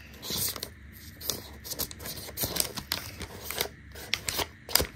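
Marker pen writing on a crumpled sheet of paper: a string of short scratchy strokes, with the paper rustling under the hand.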